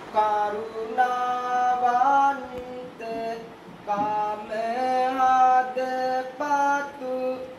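A young Buddhist novice monk singing kavi bana, the Sinhala chanted poetic sermon: long held notes that step and bend in pitch, with short breaks between phrases.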